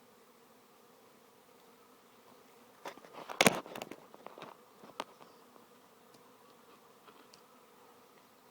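A swarm of honey bees humming steadily as they fly around and into a swarm trap. A short burst of knocks and rustling comes about three seconds in and dies away within two seconds.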